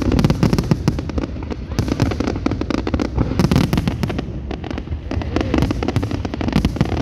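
Aerial fireworks going off in a dense barrage: many sharp bangs and crackles a second, overlapping over a continuous low rumble.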